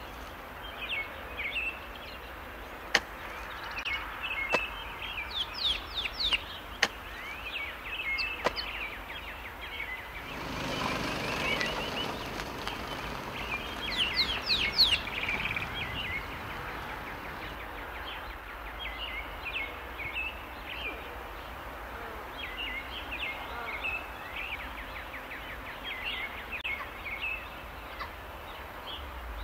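Birds chirping and calling again and again over a steady outdoor hiss, with two quick runs of falling whistled notes. A few sharp clicks come in the first several seconds, and a brief rush of noise rises about ten seconds in.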